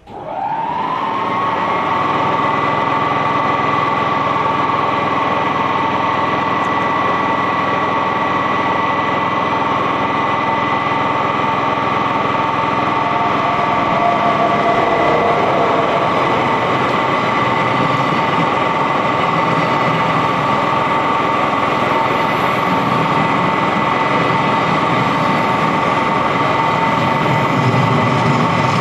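Rhaetian Railway Ge 4/4 III electric locomotive and its train passing close by at speed. The sound starts suddenly with a loud rush as the locomotive arrives. A high, steady whine then holds over the rolling noise of the coaches and a freight wagon.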